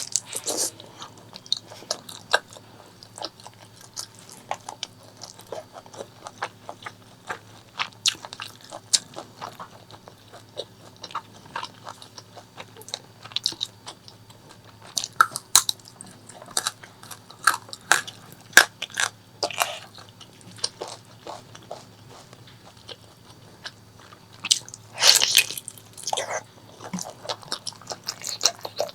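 Close-miked eating sounds of pork leg curry with rice: biting and chewing, with many short, sharp mouth clicks. A longer, louder stretch of noise comes about 25 seconds in.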